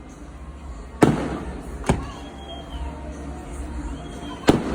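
Aerial fireworks exploding: three sharp bangs, the first about a second in, the second a second later and the third near the end, each trailing off in a short echo.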